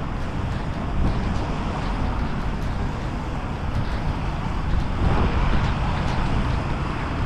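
Wind buffeting an outdoor microphone in rainy, blustery weather: a steady rushing noise heaviest in the low end, swelling a little about five seconds in.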